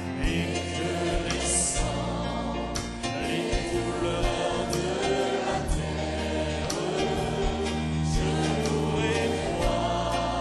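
A choir singing a hymn with band accompaniment: sustained bass notes under the voices and regular drum and cymbal hits.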